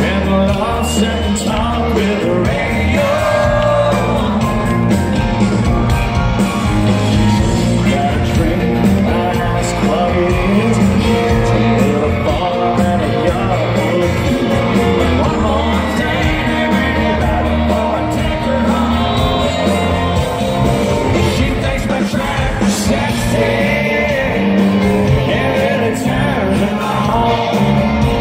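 A country rock band playing live, with electric guitars, drums and fiddle under a male lead vocal, heard loud from within the crowd.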